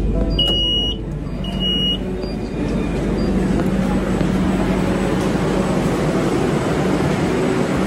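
Metro train's door chime: two short, high electronic beeps about a second apart as the doors open, followed by a steady mix of train and station noise as passengers crowd off onto the platform.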